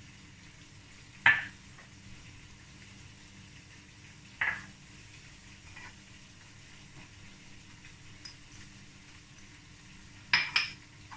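A spoon clinking sharply against a dish a few times, about a second in, about four and a half seconds in and twice near the end, while spices are spooned onto raw chicken for a marinade.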